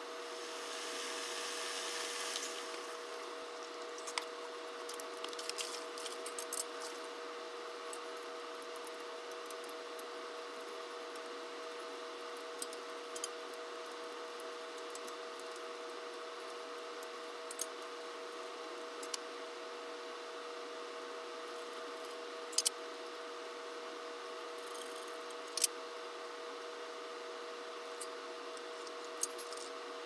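Scattered sharp clicks and taps of metal parts as hands work at the switch housing of a Hunter Original ceiling fan, over a steady hum with two fixed tones.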